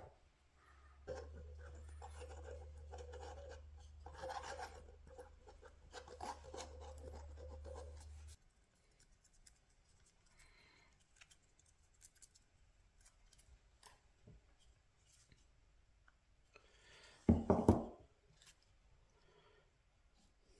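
Hand tools scraping and paring wood, over a steady low hum that cuts off suddenly partway through. Then faint scattered scratches and ticks, and a short cluster of loud knocks near the end.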